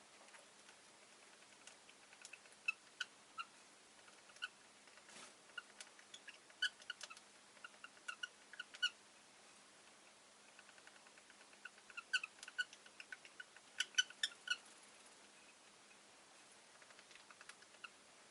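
Rosy-faced lovebird chirping: short, high chirps in two bouts of quick calls, one starting about two seconds in and another about twelve seconds in, with a few fainter chirps near the end.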